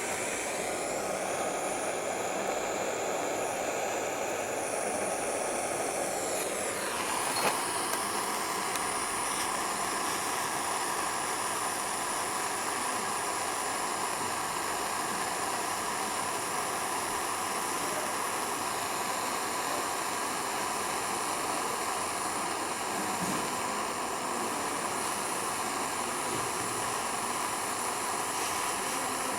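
Jeweller's soldering torch flame hissing steadily while a chain link is soldered. The sound changes about seven seconds in, with a small click.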